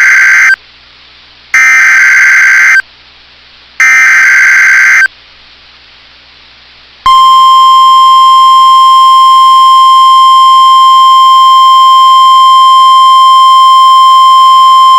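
NOAA Weather Radio Emergency Alert System signal. First come the last of the three SAME header data bursts, buzzy digital chirps repeated about every 2.3 s. After a short pause comes the steady 1050 Hz warning alarm tone, starting about seven seconds in. Together they announce a new alert, here a Severe Thunderstorm Watch.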